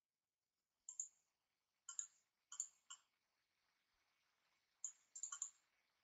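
Computer mouse clicking several times, some clicks in quick pairs or threes, with quiet gaps between.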